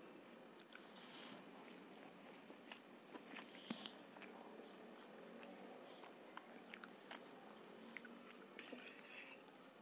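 Faint, close-miked eating sounds: quiet chewing of masala Maggi noodles with scattered soft clicks and taps of a fork on a steel plate.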